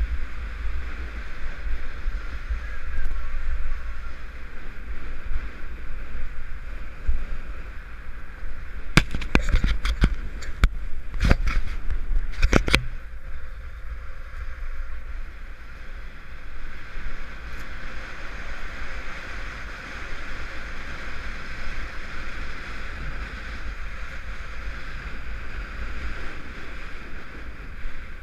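Wind rumbling on a helmet-mounted camera's microphone and skis hissing on groomed snow during a downhill ski run. A run of sharp clicks and knocks comes about nine to thirteen seconds in.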